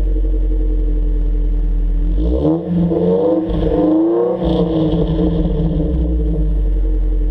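Idling 2003 Ford Focus ZX3 Zetec four-cylinder through race headers and a catless exhaust. About two seconds in it is revved once, held up for about two seconds, then drops back to a steady idle.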